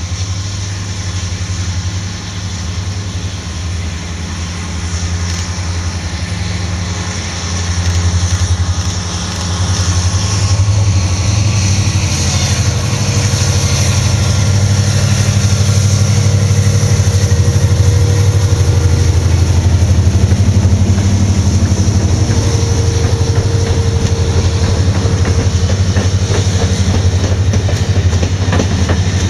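A passenger train double-headed by diesel locomotives approaches and passes close by. The low, steady engine drone grows louder about eight to ten seconds in, then the coaches roll past with wheels clattering over the rail joints.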